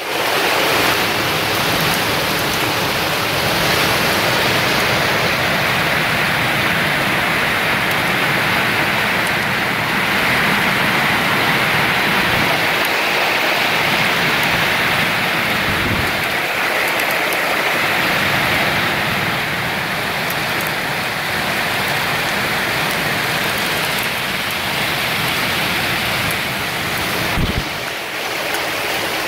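Hailstorm at its peak: dense hail and heavy rain falling on the ground, cars and trees, making a loud, steady hiss. It dips briefly near the end.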